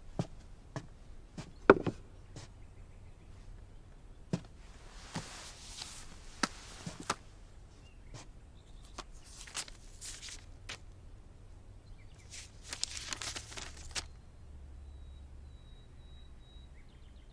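Soft footsteps on a wooden floor and a sharp knock about two seconds in, as an object is set down on a wooden table. Then paper rustles three times as a book is handled.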